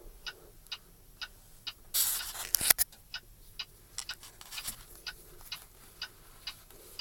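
Rapid, regular ticking, about three ticks a second, with a short burst of rustling and a sharp knock about two seconds in as the work glove with the bird inside it is handled.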